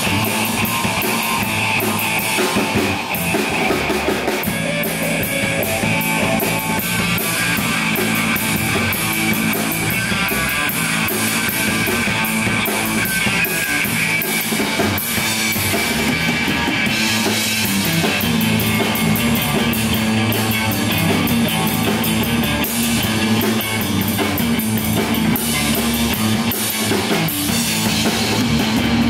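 Live rock band playing: electric bass, electric guitar and a drum kit, with busy cymbals throughout.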